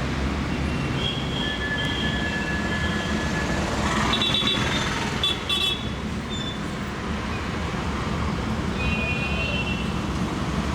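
Street traffic noise: a steady rumble of passing vehicles, with high held horn toots about a second in, in the middle and near the end.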